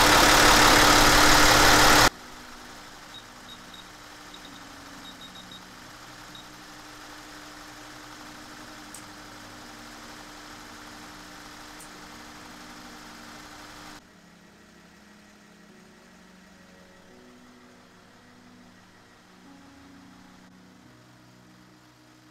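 Hyundai Veracruz idling during a circulation-type automatic transmission fluid flush, a loud steady running noise that cuts off abruptly about two seconds in. It is followed by faint, quiet background music with slowly changing low notes.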